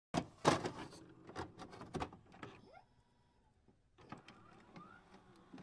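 Sound effects for an animated studio logo: a quick run of sharp clicks and crackles, then a short rising chirp. After a brief pause come more scattered clicks and a second rising chirp.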